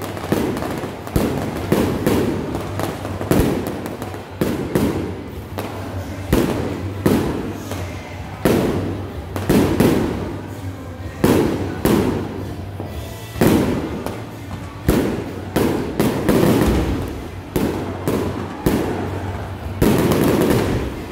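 Fireworks display going off: a steady run of sharp booms from aerial shells bursting, about one a second, each one trailing off before the next.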